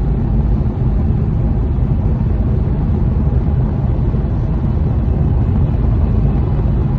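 Steady low rumble of road noise inside a moving car's cabin.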